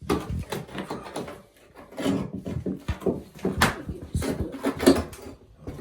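A run of irregular knocks, scrapes and clatters from a hand tool being worked into and levered against the floor during flooring work.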